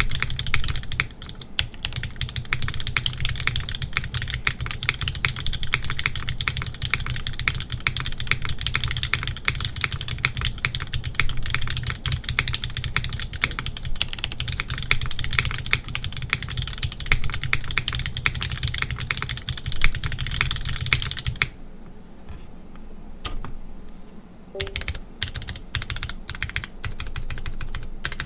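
Typing on a QK80 mechanical keyboard with lubed Gateron X switches, an aluminium plate and GMK Deepwell keycaps: a fast, continuous run of keystrokes that thins out about three quarters of the way through to a few scattered key presses, then picks up again near the end.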